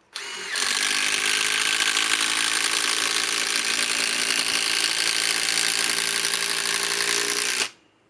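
Metabo HPT WH18DDX subcompact cordless impact driver hammering steadily for about seven and a half seconds as it drives a 6-inch TimberLOK screw into timber, starting with a brief softer burst and cutting off suddenly. It is a screw the owner considers beyond this small tool's range.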